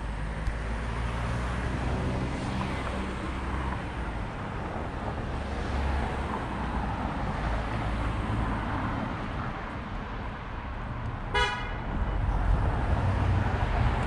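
Cars passing on a street, with one short car horn toot near the end.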